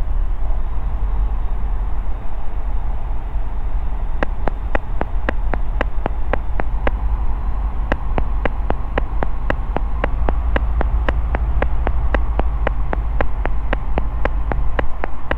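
Ikarus C42B microlight's engine and propeller noise heard in the cockpit: a steady low rumble, with an even run of sharp clicks, about four a second, running through it.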